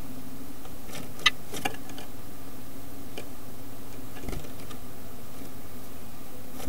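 A small bird's feet clicking and knocking on the wooden floor and walls inside a birdhouse. There is a sharp tick about a second in, a few lighter ticks after it, and a dull thump a little after four seconds, all over a steady low electrical hum.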